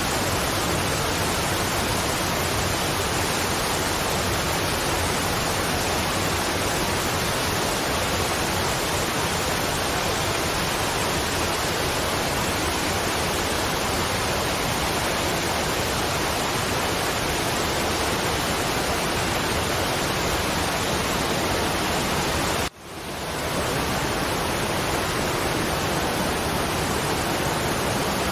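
Waterfall rushing, a steady even wash of water noise. About three-quarters of the way through it cuts out abruptly and fades back up within about a second.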